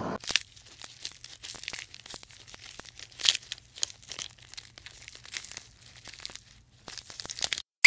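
A giraffe browsing on a leafy tree, stripping and chewing twigs and leaves: irregular crunching and crackling, with a few louder snaps.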